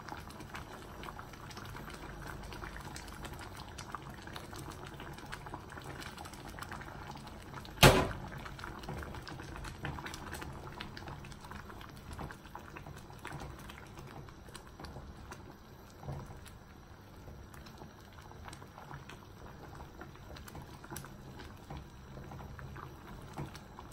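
Chicken and chana daal bubbling in a saucepan while a spatula stirs through it, with one sharp knock about eight seconds in.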